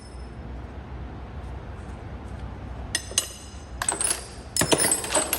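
Loose metal hand tools clinking and clattering against one another as they are handled and sorted. The clinks come in several quick clusters from about three seconds in, each with a short metallic ring, and are loudest near the end.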